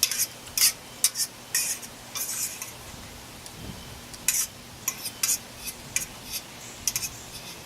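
Eating utensil scraping and clinking against a metal mess-kit pan in a dozen or so short, irregular strokes as fried grits and bacon are eaten from it.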